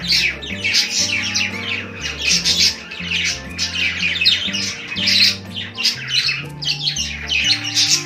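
A group of budgerigars chattering and chirping nonstop in quick, overlapping bursts, over background music with low sustained notes.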